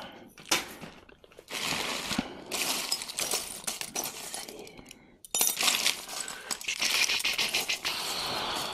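Costume jewelry being sifted by hand: metal pieces, chains and beads clinking and rattling against each other in a pile. It comes in two long runs of quick small clinks, with a short break about five seconds in.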